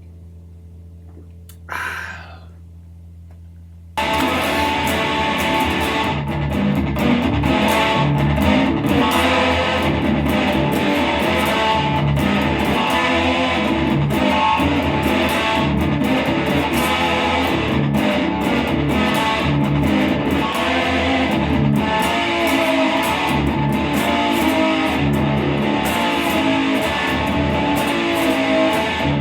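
Electric mini lap steel guitar being played, starting about four seconds in after a steady low hum and a brief noise.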